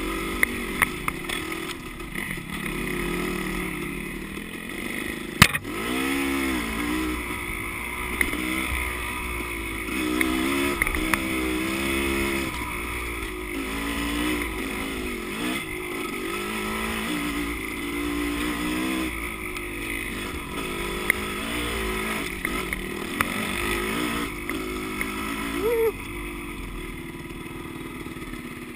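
Dirt bike engine revving up and down with the throttle while riding a trail, with scattered sharp knocks and clicks, the loudest about five seconds in.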